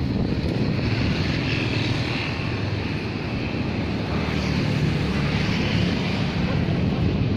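A steady low engine drone with a rushing noise over it.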